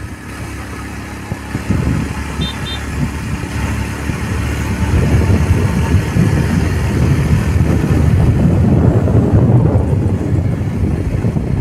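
Motorcycle riding along a road, its engine and road noise making a steady rough rumble that grows louder about halfway through.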